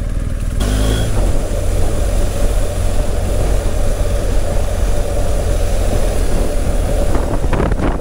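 BMW R 1250 GS Adventure's boxer-twin engine running while riding, under heavy wind rumble on the microphone; a steady rushing hiss comes in about half a second in.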